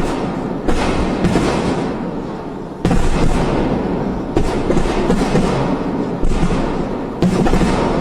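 A series of loud blasts, about one a second, each starting suddenly and fading into a continuous roar.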